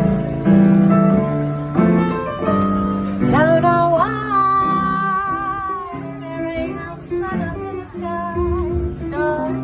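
Live music: piano playing a slow blues accompaniment, with a high melody line that slides up into long wavering notes about three seconds in, then returns in shorter sliding phrases.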